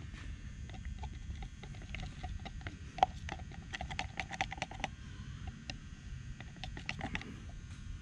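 Clear plastic stir stick clicking and scraping against the wall of a plastic cup while stirring pearl flake pigment into epoxy resin: a rapid run of small ticks, with one louder click about three seconds in and a short lull about five seconds in.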